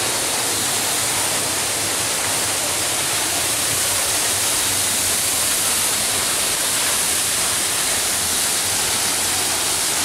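Waterfall and the rocky stream below it rushing: a steady, unbroken hiss of running water.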